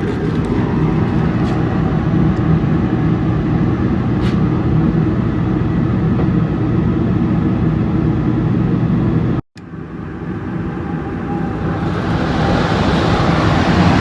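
Gas furnace running with its burners lit: a steady hum from the draft inducer motor and burners. After a sudden break about nine and a half seconds in, a rush of air builds from about twelve seconds in as the newly installed blower motor comes on, showing the blower now runs.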